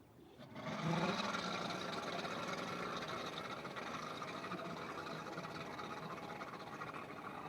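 Allison V12 aircraft engine of a drag boat running hard on a test run, coming in sharply about half a second in and slowly fading.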